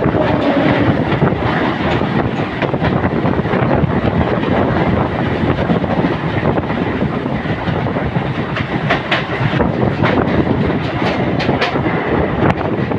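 A passenger train passing close on the next track: an Indian Railways WAP-7 electric locomotive and then its coaches going by in a steady loud rumble of wheels on rail, with clickety-clack over the rail joints growing sharper in the second half. Heard from the open doorway of another moving train, so the rush of its own running and wind is mixed in.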